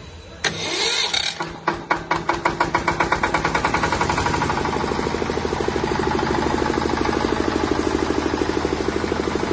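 Bajaj 7.5 kVA diesel generator set engine starting. It begins suddenly with a hiss and a few slow firing beats, which quicken over a few seconds and settle into a steady, fast running beat.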